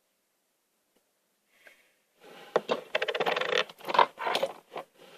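Adhesive tape being pulled off the roll: a rapid crackling tear lasting about three seconds, starting about two seconds in, mixed with handling scrapes.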